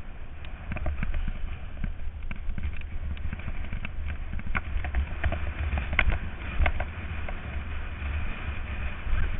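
Mountain bike riding fast down a dry dirt singletrack: tyres crunching over dirt and loose stones, with the bike rattling and clicking sharply as it hits bumps, over a steady low rumble of wind on the microphone. Two louder clacks come about six seconds in.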